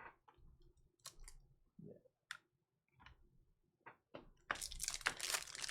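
Trading cards and packs being handled: scattered light clicks for the first few seconds, then a denser crackling rustle from about four and a half seconds in.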